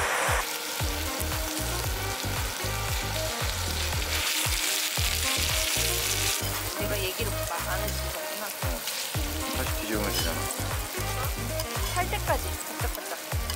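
Seasoned chicken pieces sizzling and frying on a hot griddle, with tongs moving the pieces. The sizzle grows stronger for a couple of seconds about four seconds in.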